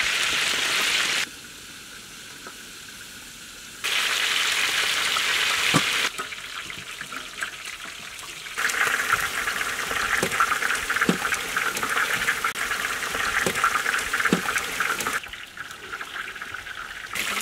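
Chicken pieces frying in hot oil in a large metal pan, a steady crackling sizzle that drops abruptly to a low level and comes back several times, with a few faint knocks.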